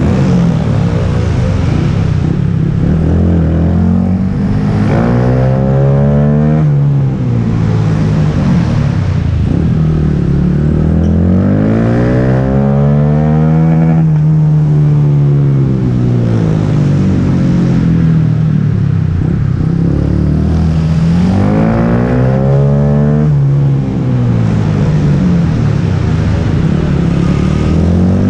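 Small motorcycle engine, heard from on board, revving up and down as the bike laps a tight track: the pitch climbs on each straight and drops off into the corners, about every eight seconds.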